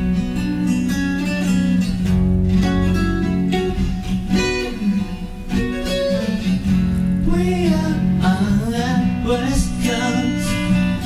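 Cutaway acoustic guitar played as a song's accompaniment, with a man's singing voice coming in about seven seconds in.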